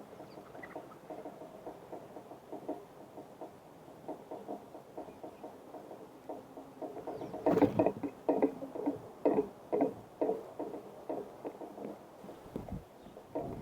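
Small birds pecking and scrabbling at a bird feeder close to the microphone: quick, irregular tapping and clicking of beaks and feet on the feeder and seed, busiest and loudest from about halfway through. A few faint chirps are heard too.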